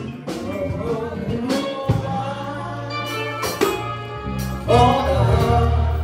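Live gospel music from a church band: an electric bass guitar holding long low notes under sharp drum hits, with singing over it. The band gets louder about three-quarters of the way through.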